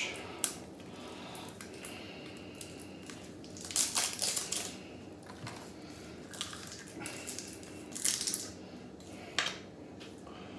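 Small glass jar of cake sprinkles being handled and its lid worked open: several short bursts of clicking, scraping and rattling, the loudest about four seconds in.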